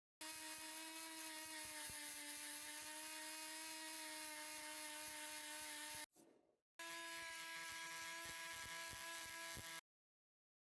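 Small high-speed rotary tool running steadily with a high whine. It cuts out a little after six seconds in and starts again at a slightly higher pitch, then stops near the end.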